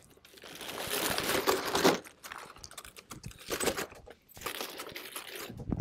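Plastic-wrapped cases of bottled water crinkling and crackling as they are lifted off a stack and set on a shopping cart's bottom rack, in three spells with a few light knocks.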